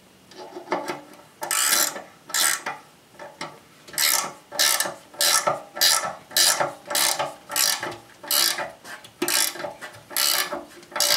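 Ratcheting combination wrench clicking in short bursts as it tightens a mower blade bolt onto the deck spindle. The strokes start about a second in and settle to about two a second.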